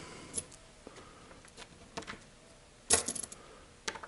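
Small metal fastener hardware (T-nuts and bolts) clicking and clinking as it is handled during assembly. A few scattered light clicks, with a quick run of clinks about three seconds in.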